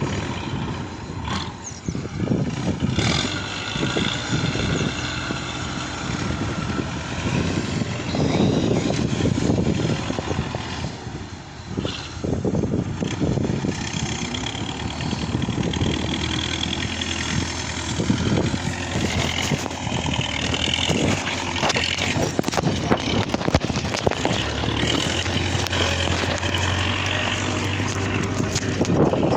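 Belarus MTZ-826 tractor's diesel engine running during timber loading, its level rising and falling, with scattered sharp knocks and clanks.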